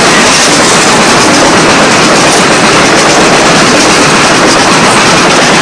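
A heavy ore train rolling past close by: a loud, steady noise of wheels on the rails.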